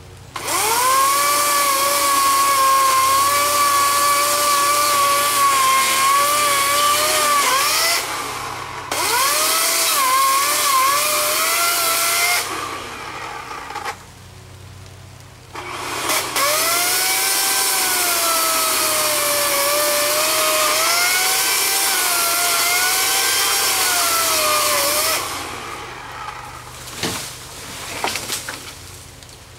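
Greenworks 18-inch 14.5-amp electric chainsaw cutting wood in three long runs. Its motor whine sags in pitch as the chain bites and climbs again as it frees, with short pauses between runs. It winds down near the end, followed by a few sharp cracks.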